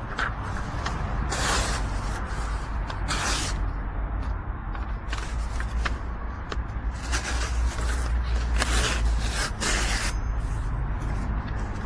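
Repeated strokes of a nakiri kitchen knife blade, each a short swishing scrape, about once a second at uneven spacing, over a steady low rumble.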